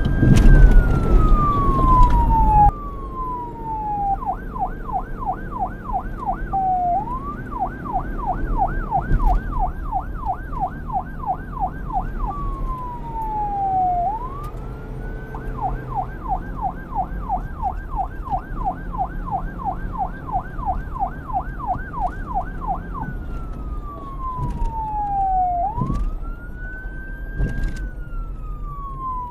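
Police car siren switching between a slow wail, rising and falling over a few seconds, and a fast yelp of about four sweeps a second. It changes mode several times. A low rumble runs beneath it and drops away about three seconds in.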